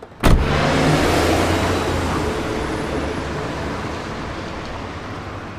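A car door slams shut, then the car's engine runs as it pulls away, its sound fading.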